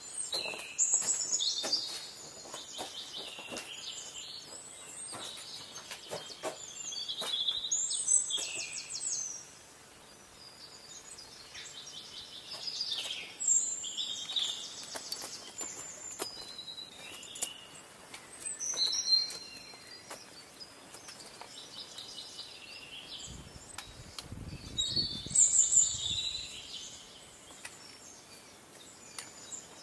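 Songbirds singing, with short phrases of high chirps and trills repeating every few seconds. Scattered light clicks sound in the first third, and a brief low rumble comes about three-quarters of the way through.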